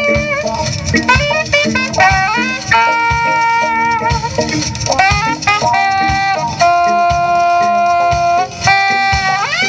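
Live jazz band, with a saxophone carrying the melody in long held notes that slide up into the next note, over bass and a drum kit keeping a steady beat.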